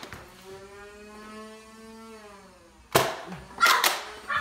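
Motorized Nerf blaster's flywheel motors whirring with a steady whine for about two and a half seconds, easing off at the end, followed by a few sharp plastic clacks and knocks near the end.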